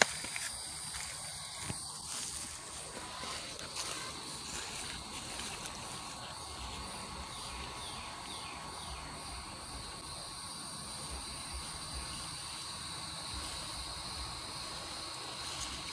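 Outdoor background: a steady high-pitched hiss, with a few soft clicks in the first few seconds.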